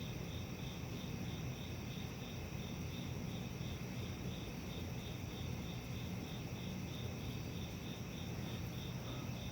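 An insect chirping steadily, a short high chirp about twice a second, over a faint low hum.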